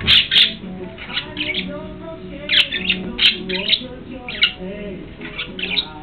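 Pet budgerigar hens calling: short, sharp squawks and chirps in little clusters about once a second, over a lower, steadier chatter.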